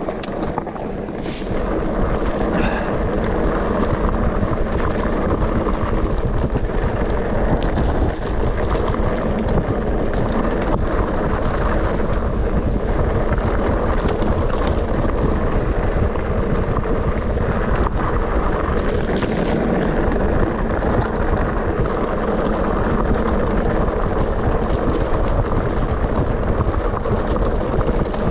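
Wind buffeting the microphone over the steady rumble of mountain bike tyres rolling fast on a gravel track, with small knocks and rattles from the bike.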